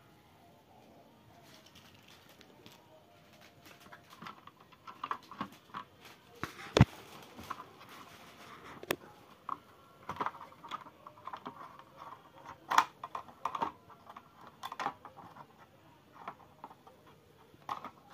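Handling noise of a computer motherboard being worked loose and lifted out of its sheet-metal chassis. An irregular run of small clicks, taps and rattles starts a few seconds in, with one sharp click about seven seconds in.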